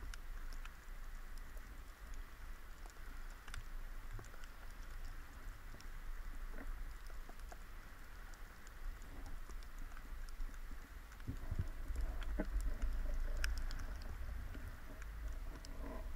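Underwater ambience through a camera housing: faint scattered clicks and crackling over a steady hiss, with a low rumble of water movement that grows louder about eleven seconds in.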